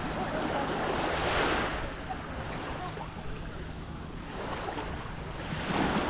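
Sea waves breaking and washing onto the beach, a steady surf with two swells: one peaking about a second and a half in, another near the end.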